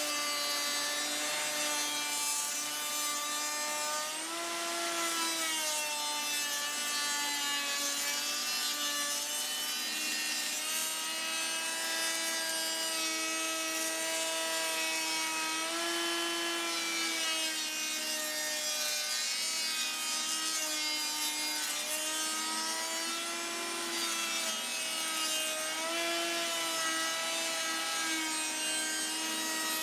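Table-mounted router running at speed, cutting a groove along a long wooden door stile as it is pushed past the bit, with a shop vacuum running at the same time. The motor's steady whine dips and recovers slightly in pitch a few times as the cutting load changes.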